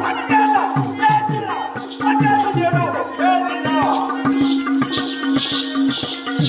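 Live folk-theatre accompaniment: a two-headed hand drum beaten in a steady rhythm over a held reed drone, with a bright metallic jingle keeping time and a man's voice singing in sliding phrases.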